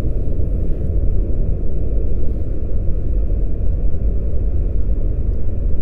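A loud, steady low rumble with no distinct events or changes.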